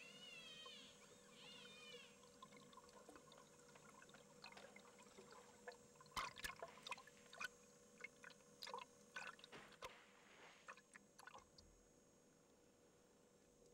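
Faint underwater sound through a camera housing: wavering whistle-like tones in the first two seconds, then scattered clicks and short watery splashes and bubbling, busiest around the middle and dying away near the end.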